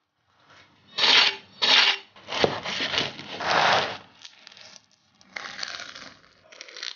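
Crisp pan-fried crust of Chinese chive pockets (jiucai hezi) crunching and crackling in a run of short bursts, two sharp ones about a second in, as the pastries are broken apart and bitten.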